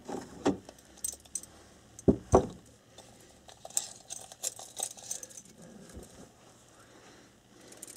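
Handling noises as a retractable steel tape measure is picked up and its blade pulled out: scattered clicks and light metallic rattles, with two louder knocks a little over two seconds in.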